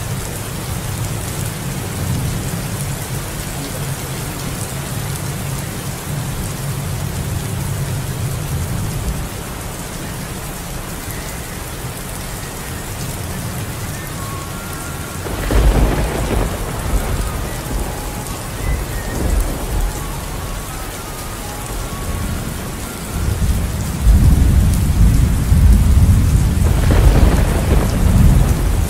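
Steady rain with thunder. A crack and rumble of thunder comes about halfway through, and a louder, longer roll of thunder fills the last few seconds.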